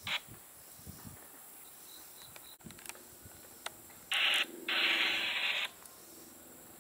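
Railroad radio scanner putting out bursts of static: a short squelch burst at the very start, then two loud hissing bursts of static about four seconds in, together lasting about a second and a half.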